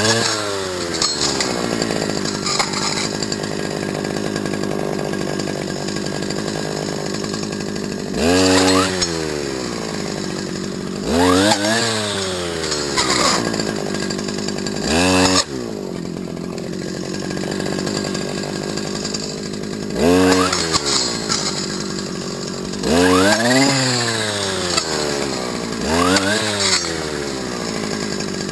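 Stihl FS250 brushcutter's two-stroke engine idling steadily and being revved in short bursts several times, the pitch climbing and then falling back to idle each time.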